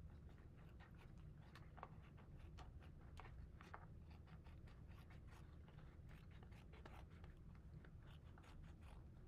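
Scissors snipping through a paper plate in faint, short, irregular cuts, over a low steady room hum.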